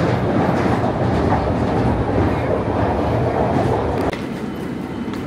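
London Underground train running through a tunnel, heard inside the carriage: a loud, steady rumble with rattling from the wheels and car body. About four seconds in it suddenly gets quieter and the low rumble falls away.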